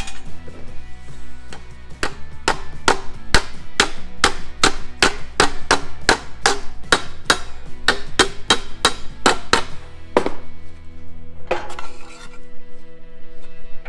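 Hammer rapidly striking a sheet-steel repair patch, about three to four blows a second, folding over its edge. The blows stop about ten seconds in, and a short cluster follows near the end. Background music plays under it.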